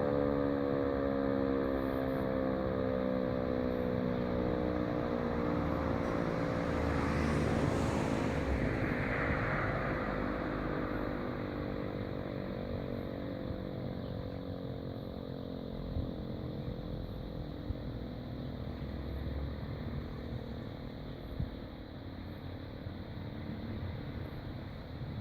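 E57 electromechanical air-raid siren winding down at the end of its all-clear tone, its pitch sliding steadily lower and fading out over the first several seconds as the rotor coasts to a stop. After that only steady outdoor background noise remains, with a few faint clicks.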